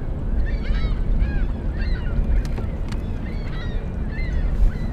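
Wind buffeting the microphone with a steady low rumble, over repeated short, arching bird calls from waterfowl or other water birds.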